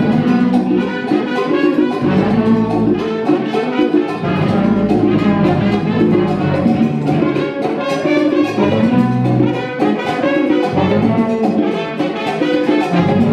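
Live Latin band playing at full volume, a dense mix of many instruments sounding together without a break.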